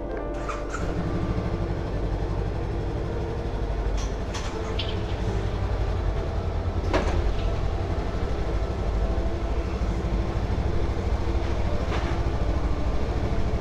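A motorcycle engine idles steadily inside an enclosed rail shuttle carriage; the low rumble comes in about a second in. A few sharp metallic clicks and knocks sound about four, seven and twelve seconds in.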